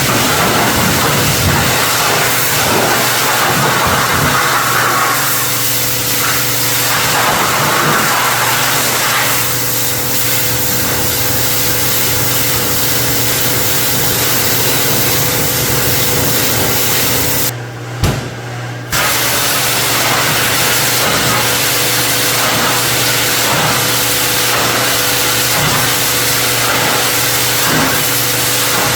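Pressure washer running with its water jet hissing steadily, blasting grease off a steel tool box. A little past halfway the spray stops for about a second and a half with a click while the machine keeps humming, then starts again.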